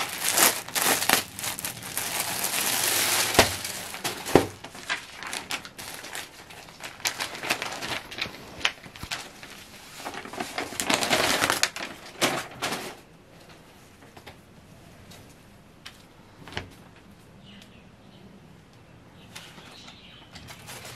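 Glossy packaging crinkling and cloth rustling as a folded suit-material set is unwrapped and shaken out, with many sharp crackles; it is loudest in two spells and turns to quiet handling of the cloth with a few soft clicks after about 13 seconds.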